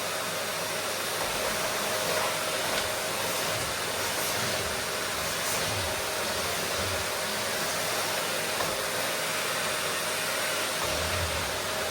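Vacuum cleaner running steadily: an even rushing hiss of air with a faint steady whine from the motor.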